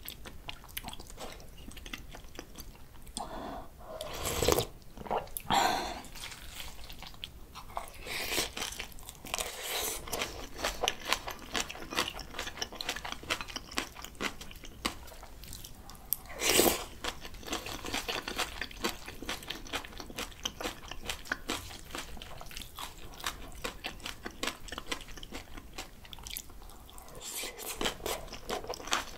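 Close-miked chewing and crunching of a mouthful of bibimbap mixed with fresh spring cabbage (bomdong) and julienned raw radish salad, a dense run of small wet crunches. A few louder bursts stand out about four and a half, five and a half and sixteen and a half seconds in.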